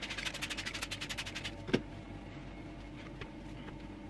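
Cooking-oil spray bottle pumped rapidly over a metal sheet pan: quick hissy sprays, about ten a second, for a second and a half. A single knock follows, with a few faint ticks after it.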